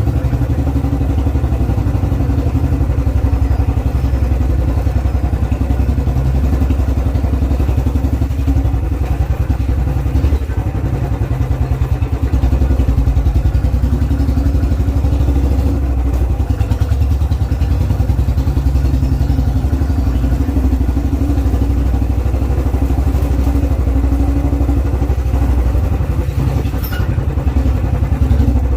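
Royal Enfield Bullet 350's single-cylinder four-stroke engine running steadily with its even, low thump.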